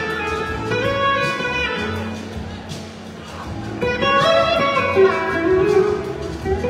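Live band music led by a red SG-style electric guitar playing a melodic lead line over bass and drums. The line eases to a softer passage about two to three seconds in, then comes back louder with gliding notes from about four seconds.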